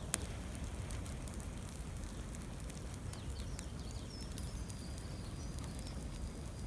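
Open fire burning with a low steady rumble and scattered crackles, one sharp pop just after the start.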